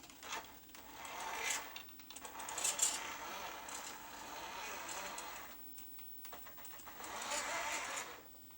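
Radio-controlled model construction vehicle running in spurts: a small electric motor whining under a rattling, scraping clatter. It goes in two main spells with a pause of about a second and a half between them.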